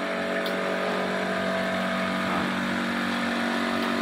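Electric water pumps of a reverse-osmosis filtering system running, a steady, even motor hum.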